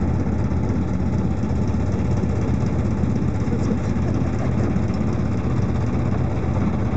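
Small motorboat engine running steadily, an even low hum with no change in speed.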